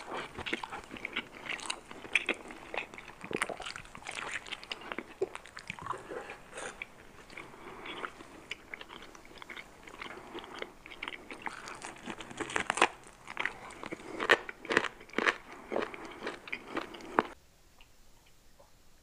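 Close-miked eating: crunching bites and chewing on a roasted chicken drumstick, a dense run of crisp crackles and wet smacks that stops abruptly near the end.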